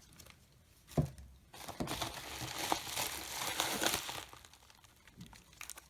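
Packaging crinkling and rustling as it is handled, with a single knock about a second in.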